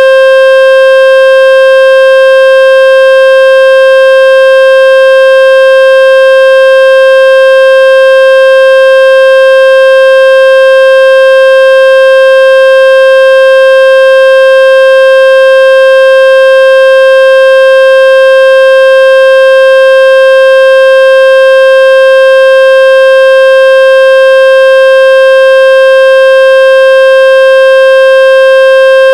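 Speaker-cleaning water-ejection tone: a loud, steady electronic tone holding one pitch, played to shake water and dust out of a phone speaker or earphones.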